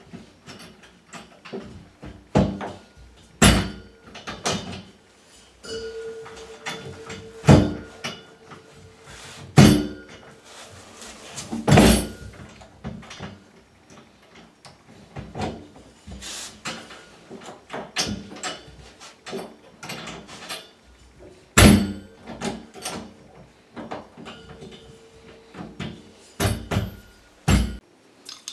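Irregular knocks, clicks and metal clinks from chrome radiator valves and compression fittings being handled and fitted onto copper pipes by hand, with several much louder thuds spread through.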